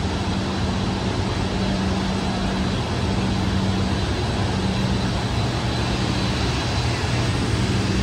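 Steady low hum of the Hoover Dam powerhouse's running hydroelectric generators, over a broad, even rushing drone of the machine hall.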